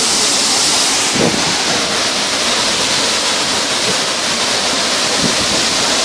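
Large waterfall pouring over rock: a loud, steady rush of falling water, its tone shifting slightly about a second in.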